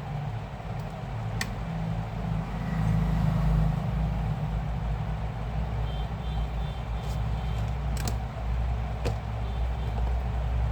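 Steady low engine rumble with a few sharp clicks.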